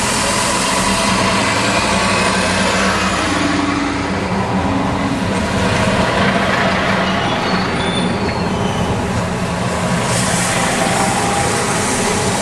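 A RegioShuttle diesel railcar set passing close by on the station track, its underfloor diesel engine running with a steady hum and the wheels rumbling over the rails. A few brief high squeals come about two-thirds of the way through.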